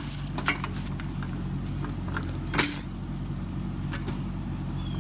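Kubota KX71-3 mini excavator's diesel engine running steadily, with scattered knocks and clanks, the loudest about two and a half seconds in.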